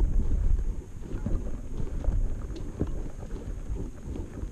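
Wind buffeting the microphone in a low, gusting rumble, easing after about a second, with footsteps crunching on a gravel bank.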